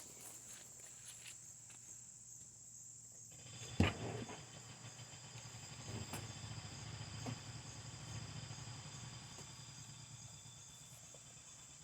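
Faint steady chirring of insects, with a single sharp knock about four seconds in and a low rumble afterwards.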